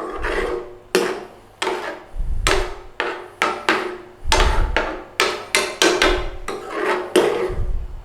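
Metal utensil stirring a thick curry in a pan, knocking and scraping against the pan about twice a second with a short ringing after each knock.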